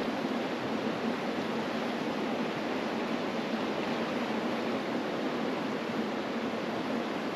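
Mountain river rushing over rocks: a steady, even roar of flowing water.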